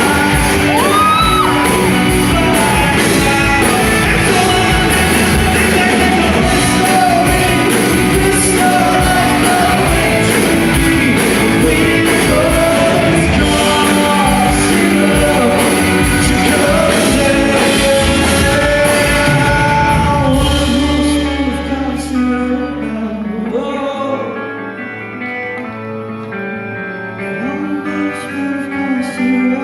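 Live rock band playing loud with a singer over it. About two-thirds of the way through, the drums and bass drop out suddenly, leaving quieter held chords and voice.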